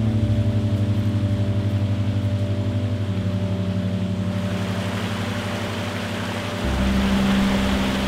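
Ambient background music of sustained low chords that pulse several times a second, changing chord about three seconds in and again near seven seconds. The rushing of a shallow stream rises under it from about halfway.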